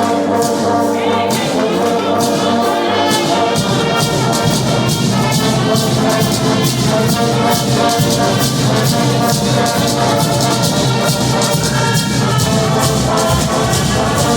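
Music with brass instruments over a steady, even percussion beat; a deep bass line comes in about three and a half seconds in.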